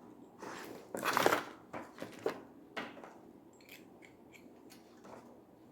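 A wrench tightening a shower hose fitting: a loud grinding scrape of metal on the threaded connection about a second in, followed by a few sharp clicks and fainter ticks.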